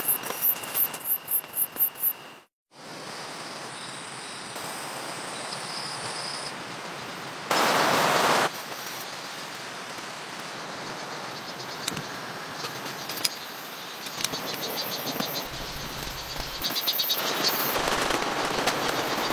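Heavy rain falling on a camp tent and the trees around it: a steady hiss with crackling drops. The sound drops out briefly about two and a half seconds in, gives a louder one-second rush of noise about eight seconds in, and grows louder near the end.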